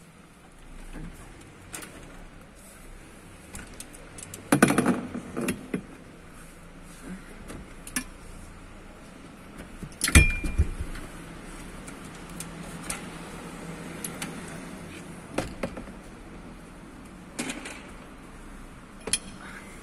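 Manual wheelchair being taken apart by hand: scattered clicks, rattles and knocks of its metal frame and quick-release wheels being unlocked and handled. There is a cluster of clatter about five seconds in and one sharp knock about ten seconds in, the loudest sound.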